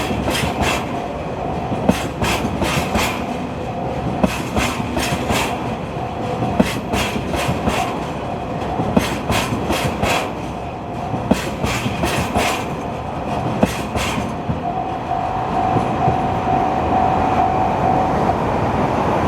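Train of empty tank wagons rolling past, the wheels clicking over the rail joints in evenly spaced pairs, with a steady whine over the rumble. The clicking stops about fourteen seconds in as the last wagons pass, leaving a steady hum.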